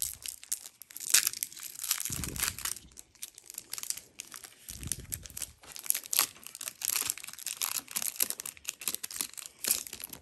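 Foil wrapper of a Pokémon card booster pack crinkling and crackling as it is torn open and pulled apart by hand, with two dull low bumps along the way.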